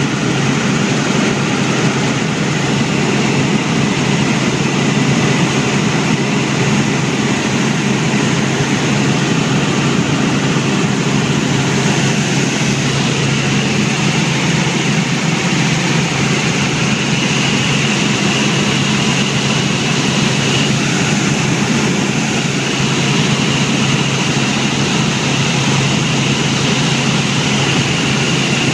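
Helicopter engine and rotor noise heard from inside the cabin in flight: a loud, steady drone with a low hum and a high whine that strengthens a little about halfway through.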